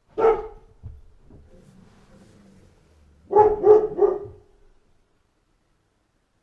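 A dog barking: one bark, then a quick run of three barks about three seconds later.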